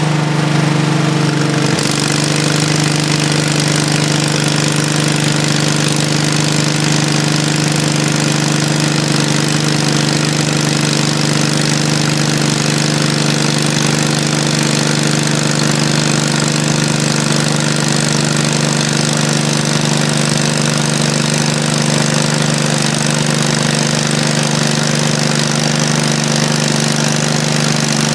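Portable bandsaw mill's small gasoline engine running steadily at high throttle; about two seconds in, a broad hiss fills in over it, as of the band blade cutting through a wide cant. The owner says this engine is running poorly and needs maintenance.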